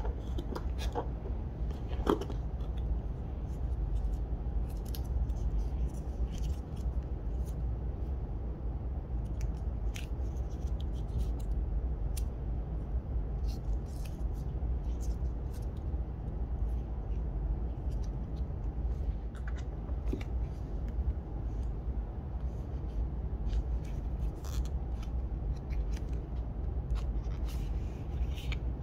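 Crisp clicks and rustling of paper and cardboard packaging as a coiled charging cable in its paper wrap is lifted out of the box and handled, over a steady low hum.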